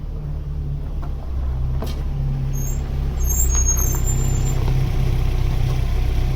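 A car driving: a steady low engine and road rumble that grows louder about three seconds in.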